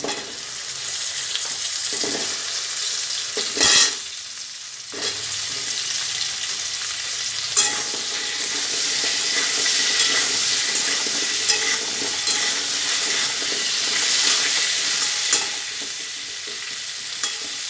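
Taro root and potato pieces frying in hot oil in a metal kadai, sizzling steadily while a metal spatula stirs and scrapes them, with a loud knock about four seconds in and a few lighter scrapes and taps after.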